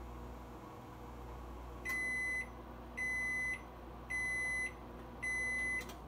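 GE JVM3160 over-the-range microwave oven running with a steady low hum, then sounding its end-of-cycle signal: four high beeps, each about half a second long and about a second apart, as the timer reaches zero and the heating is done.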